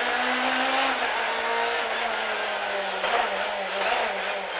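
Ford Fiesta S2000 rally car's 2.0-litre four-cylinder engine running under load, heard inside the cabin over steady road noise, its note shifting in pitch a little after a second in and again about three seconds in as the car is driven through a left hairpin.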